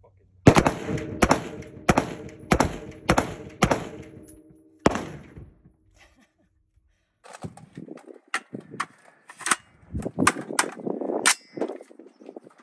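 AR-style semi-automatic rifle fired seven times in quick succession, roughly one shot every half second to second, with a brief ring after the louder reports. After a pause of about two seconds, a run of fainter sharp cracks and clatter follows.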